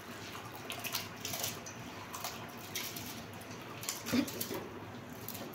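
Soaked rice being tipped and scraped from a steel bowl into a pot of boiling water: a run of brief splashes and patters as the grains drop in, the loudest about four seconds in.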